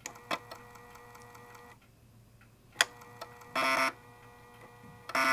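3.5-inch PC floppy drive, run through a DrawBridge Arduino adapter, reading an Amiga disk as the emulator boots from it. The disk spins with a steady hum while the head clicks from track to track, with a sharp click about 3 seconds in and two short buzzing runs of rapid head stepping, one just after and one at the end.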